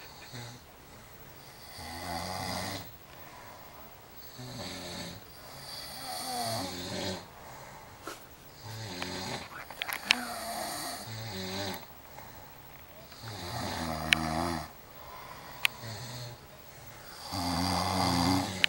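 A person snoring, one snore every three to four seconds, some drawn out in two parts, with quieter breathing gaps between and a few sharp clicks near the middle.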